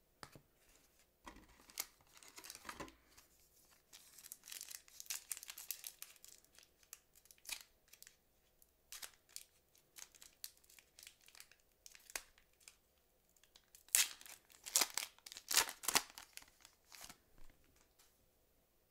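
A foil trading-card pack wrapper, 2006 Fleer Ultra football, torn open and crinkled by hand in a string of short crackling tears, loudest about three-quarters of the way through.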